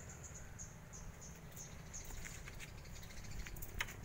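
An insect chirping in short high pulses a few times a second, with light clicks and ticks of bonsai wire being wound around adenium branches, one sharper click near the end.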